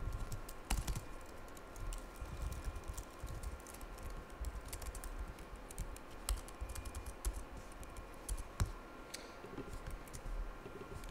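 Typing on a computer keyboard: a quick, irregular run of key clicks, several a second, with a few harder keystrokes standing out.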